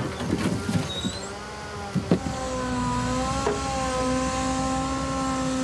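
Hydraulic log loader on a timber truck working under load: a steady mechanical whine that shifts slightly in pitch partway through, with a couple of sharp knocks as the grapple handles logs.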